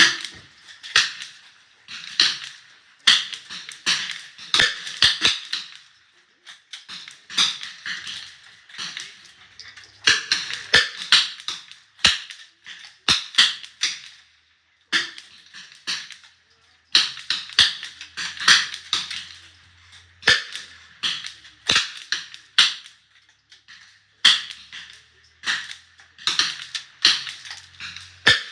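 A .22 LR rifle fired over and over: sharp cracks come in clusters a second or two long, with clicks among them and short pauses between the clusters.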